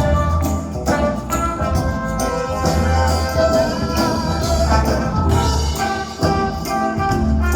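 Live band playing an instrumental passage of a pop song, with brass over a steady bass and drum beat.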